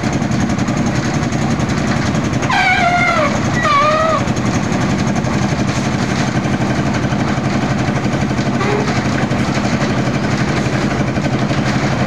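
Engine of a concrete mixer and hoist running steadily with a fast, even chugging. About two and a half seconds in, two short, high, wavering calls sound over it.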